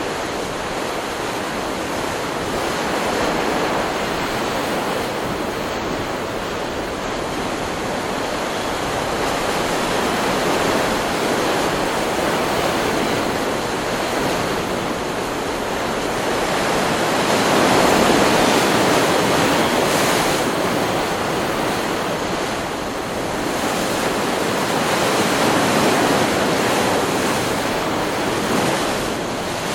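Ocean surf: a continuous wash of breaking waves that swells louder roughly every seven seconds as each wave breaks, the biggest about halfway through.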